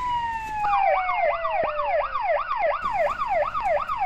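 Electronic police siren: a slow wail falling in pitch, overtaken about a second in by a fast yelp that repeats about three or four times a second.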